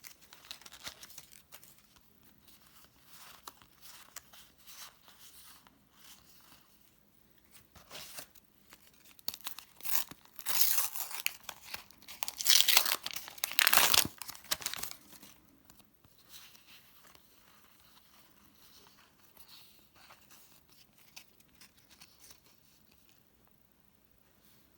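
Panini sticker packets being torn open and their wrappers crinkled. A run of loud tearing strokes comes about ten seconds in and lasts roughly five seconds, with quieter rustling and handling before and after.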